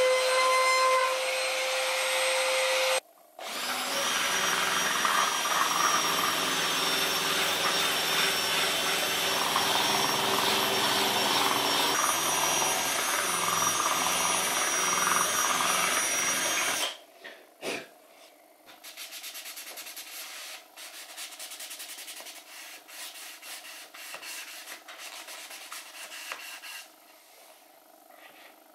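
A trim router whines steadily as it cuts into the end of a pallet board, stopping about three seconds in. Then a cordless drill spins a sanding dowel inside a wooden tray's handle slot for about thirteen seconds. After that comes quieter hand sanding: a sanding block rubbed over the tray in short strokes.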